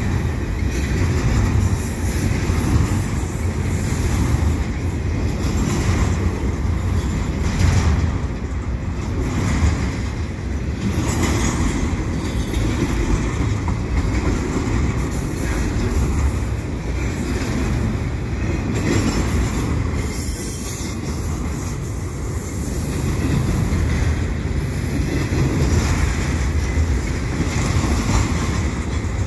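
Freight train of double-stack container well cars rolling past close by: a steady low rumble of steel wheels on rail, with repeated clacks as the wheels pass over the rails.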